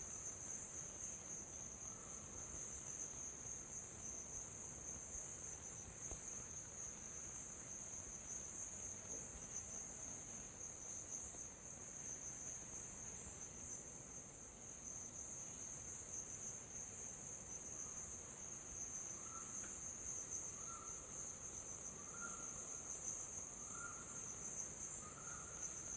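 Faint, steady high-pitched buzz of an insect chorus. Over the last several seconds a short mid-pitched call repeats about every second and a half.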